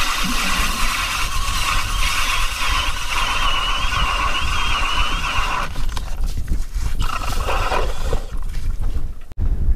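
Cordless Milwaukee drill turning an 8-inch K-Drill ice auger, its motor whining steadily as the auger bores through the ice. It stops a little over halfway through, then runs again briefly and winds down near the end.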